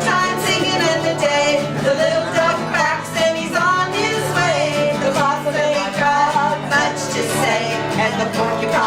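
Singing with guitar accompaniment: a country-style song sung as one continuous melody over steady low notes.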